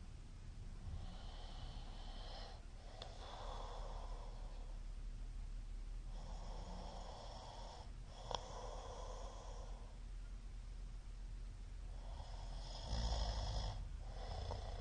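A middle-aged man snoring in his sleep: three snoring breaths about five to six seconds apart, each in two parts. A sharp click comes a little past the middle, and the last breath is the loudest and deepest.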